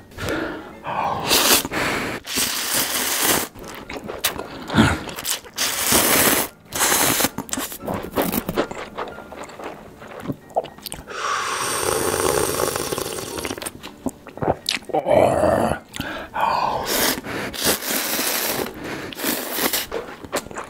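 Slurping and wet chewing of instant ramen noodles close to the microphone: irregular short slurps and mouth noises, with a longer drawn-out stretch about eleven seconds in.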